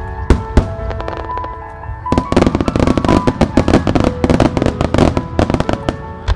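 Aerial firework shells bursting: two sharp bangs in the first second, then about four seconds of dense, rapid cracking and popping, with music playing underneath.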